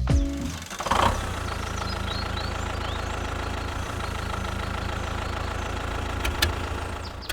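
An engine running steadily at idle, settling in about a second in and cutting off near the end.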